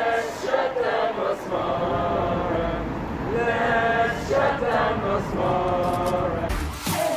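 A group of people chanting together in unison, with long held notes.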